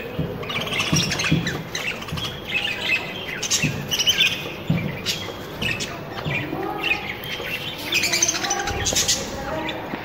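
Budgerigars chirping and squawking in busy, overlapping chatter.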